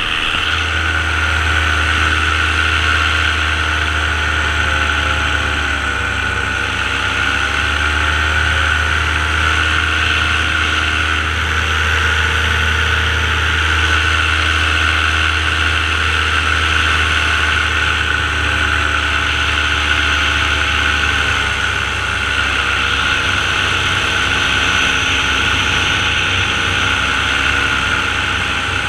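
Light aircraft's engine and propeller running steadily in flight. The engine note dips briefly about six seconds in and settles a little lower after about twenty seconds.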